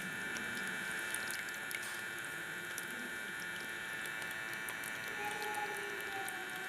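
Water trickling and dripping in a small tabletop water fountain, with many small splashes over a steady high-pitched hum.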